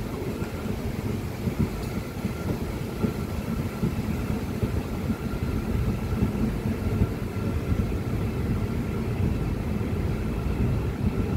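Train running along the track: a steady low rumble of wheels on rails, with a faint steady high tone above it.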